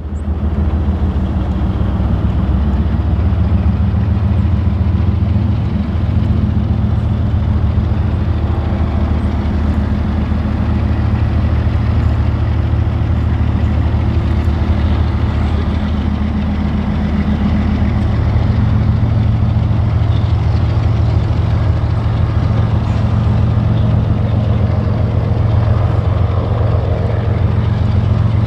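Heavy diesel engine running steadily with a deep, even hum that holds its pitch and level throughout.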